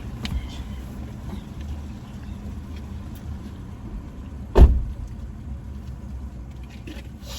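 A car's steady low rumble, with one sharp, heavy thump a little past halfway.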